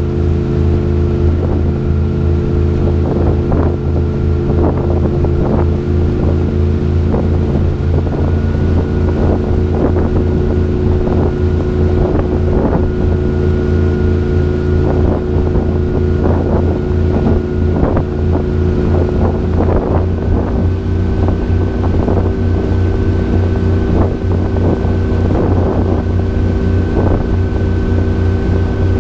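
Tour boat's engine running steadily at cruising speed, with the wake churning and splashing alongside the hull.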